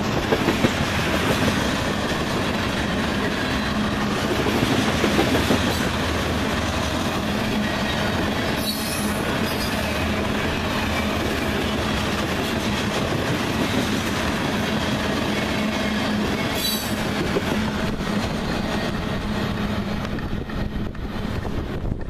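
Loaded crude-oil tank cars of a freight train rolling past close by: a loud, steady rumble and clatter of steel wheels on the rails. It thins out near the end as the last cars go by.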